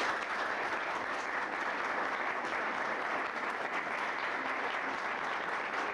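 A group of people applauding steadily.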